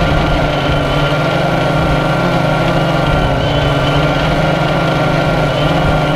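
AirDog follow-me quadcopter's electric motors and propellers running steadily in flight: a constant high whine over a slightly wavering low hum.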